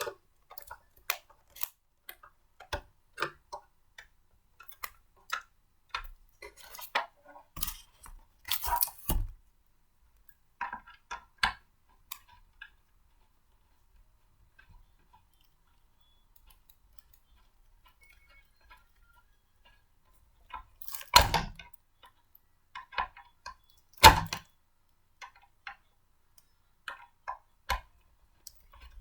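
Blender parts being handled and fitted together by hand: irregular clicks, taps and clinks of plastic and metal pieces, with a quiet pause midway and two louder knocks in the second half.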